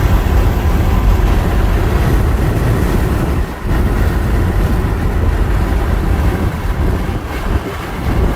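Car driving, with a steady low rumble of road and wind noise that dips briefly about three and a half seconds in.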